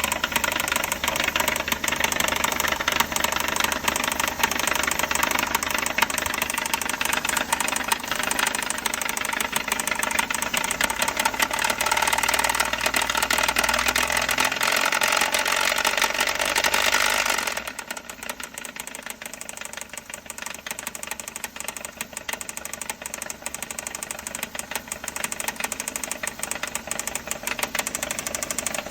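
Suzuki K6A three-cylinder engine running with a rapid, continuous knocking: an abnormal engine noise that comes from neglected oil maintenance. It is loud for the first 17 seconds or so, then suddenly drops much quieter, with the knocking still there.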